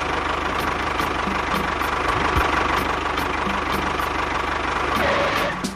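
Small engine of a homemade mini tractor running steadily with a fast, even ticking rhythm; it cuts off near the end.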